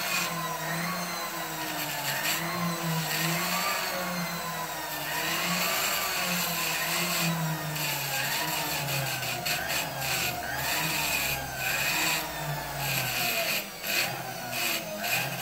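Jeweller's flexible-shaft rotary tool running a small abrasive stone wheel against a platinum bar, its motor whine rising and falling over and over as the speed changes. The stone is grinding off a folded edge so the bar will not crack or peel when it is rolled.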